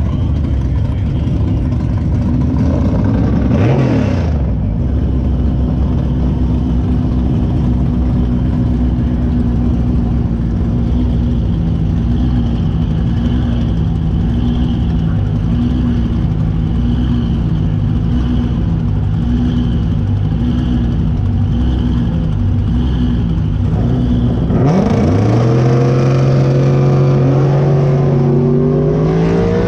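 Drag race car engines idling with an even, lumpy pulse, with a quick rev about four seconds in. About 25 seconds in, an engine revs up sharply and holds a high, steady pitch, then climbs again near the end.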